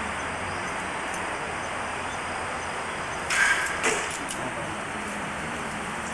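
A Japanese longbow (yumi) is loosed: a sharp string twang with a brief ringing tone (tsurune) about three seconds in, then a second short crack about half a second later as the arrow strikes the target, a hit.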